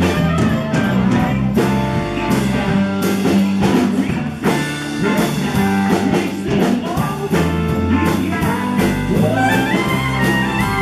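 Live rock band playing an instrumental passage: electric and acoustic guitars over a drum kit, with a trumpet line that climbs near the end.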